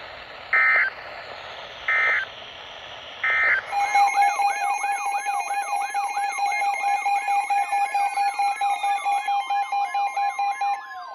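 Three short digital data bursts about a second apart, the Emergency Alert System end-of-message tones closing a warning. They are followed by a loud electronic siren-like alarm: a steady tone under a fast warbling tone, with slow falling pitch sweeps across it.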